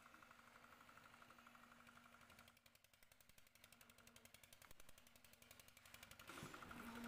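Drum concrete mixers running, faint: a rapid, even mechanical pulsing over a steady low hum.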